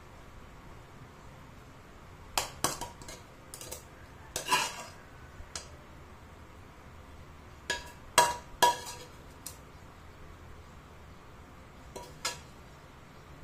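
A metal spoon-spatula clinking and scraping against a metal wok and a glass baking dish while scooping out a stir-fried tofu and chicken mixture. The sounds are irregular, scattered clinks and knocks, a few of them ringing briefly.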